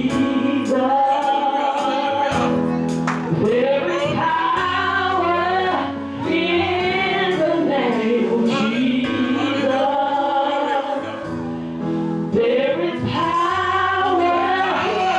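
Live gospel song in church: a small group of women's voices singing together over sustained keyboard and bass accompaniment.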